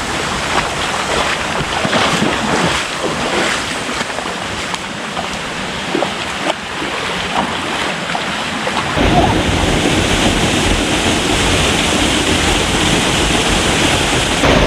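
Waterfall's rushing water, a steady roar of white noise. About nine seconds in it suddenly gets louder and deeper, with wind rumbling on the microphone.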